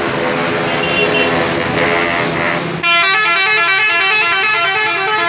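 A bus's multi-tone telolet horn plays a rapid stepped melody, starting abruptly about three seconds in over general vehicle noise.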